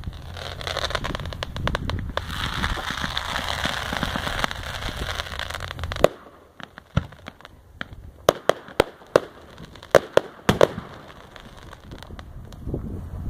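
Fireworks: dense crackling for about six seconds that cuts off suddenly, then about a dozen sharp bangs scattered over the next five seconds, with a low rumble building near the end.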